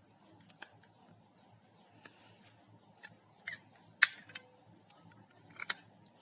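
Rubber bands being stretched and let snap onto a phone to clamp its freshly glued display and touch panel: a series of sharp, light clicks and snaps, the loudest about four seconds in.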